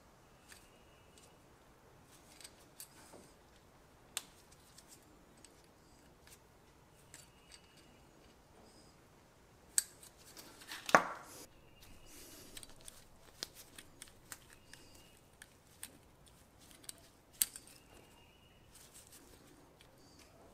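Pliers clicking and scraping as a metal terminal is folded and crimped onto a spark plug wire, a string of small faint clicks with one louder snap about halfway through.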